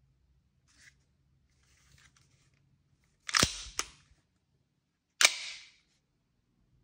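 Tokyo Marui airsoft Beretta pistol's slide snapping: a sharp clack about three seconds in, a lighter click just after, and another sharp clack about two seconds later, each trailing off in a short hiss. Faint handling noises come before.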